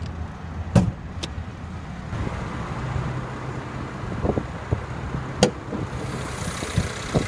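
The 3.5-litre direct-injection V6 of a Mercedes-Benz E350 idling steadily. A sharp click comes about a second in as the interior hood-release lever is pulled, and another sharp click at the hood latch about five seconds in.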